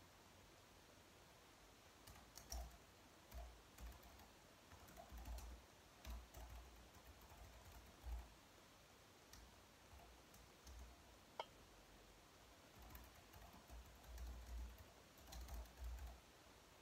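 Faint typing on a slim low-profile keyboard: irregular runs of soft key clicks with short pauses between them, starting about two seconds in, with one sharper click about two-thirds of the way through.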